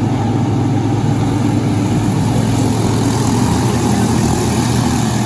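An engine running steadily, its pitch holding constant.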